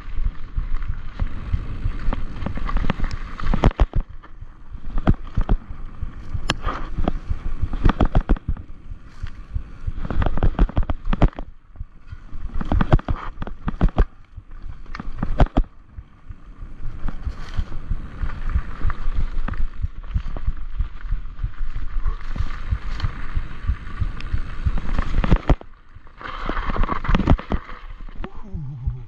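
Enduro mountain bike clattering down a rocky singletrack: a steady low rumble with frequent sharp knocks and rattles as the wheels hit stones.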